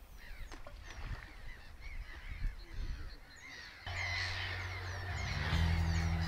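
A flock of birds calling, many short overlapping calls. About four seconds in, music with steady low notes comes in under them.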